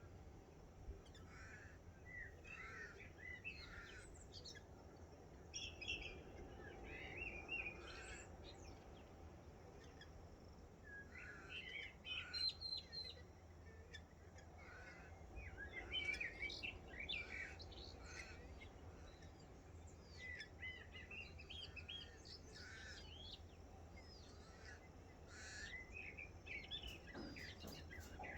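Morning chorus of several wild birds: short chirps, trills and whistled calls overlapping and coming in clusters throughout, over a faint steady low rumble.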